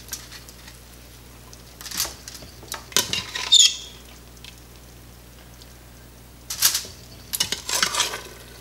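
Metal tongs scraping and clinking against the stainless steel inner pot of an Instant Pot while shredding pressure-cooked pork. The sound comes in short bursts: about two seconds in, around three to four seconds in with a brief metallic ring, and again from about six and a half to eight seconds.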